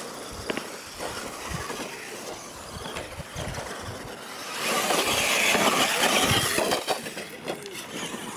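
Radio-controlled monster trucks racing on a dirt track: motors running and tyres working over loose dirt, with a few knocks. The sound grows louder for a couple of seconds about halfway through.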